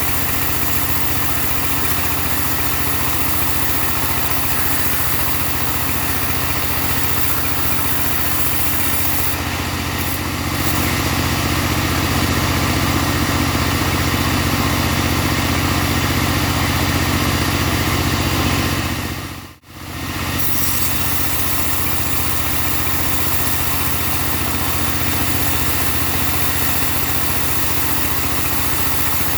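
Engine of a portable bandsaw sawmill running steadily, louder for about eight seconds in the middle. The sound cuts out sharply for a moment about two-thirds of the way through, then resumes.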